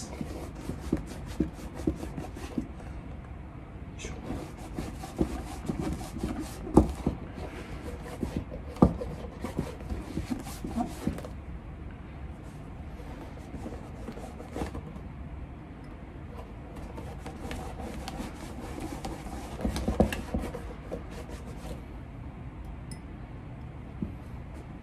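Cream being rubbed into the leather lining inside a dress shoe: soft, irregular rubbing and scuffing on leather, with scattered light knocks and clicks as the shoe is handled.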